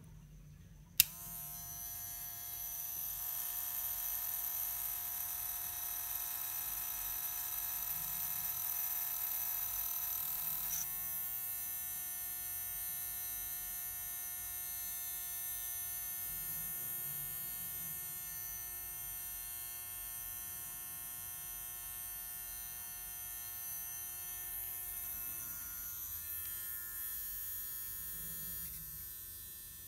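A Wahl Magic Clip Cordless hair clipper's rotary motor is switched on with a click about a second in and spins up, then runs with a steady, growling buzz. The tone shifts about ten seconds later. The noise is intense, which the owner puts down to liquid having apparently got inside the clipper.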